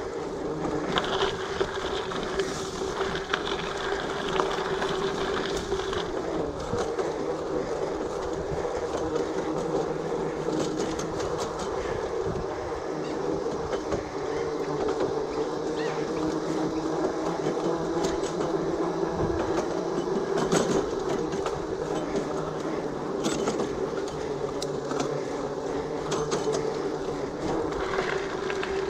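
Giant Fathom mountain bike rolling over a steel-mesh boardwalk and then onto a dirt track: a steady hum from the tyres, with frequent small rattles and knocks from the bike.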